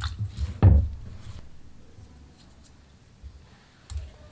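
Gloved hands lifting wet-battered tofu cubes and dropping them into a glass bowl of dry flour: a few soft knocks and rustles, the loudest a dull thump just under a second in, and a smaller one near the end.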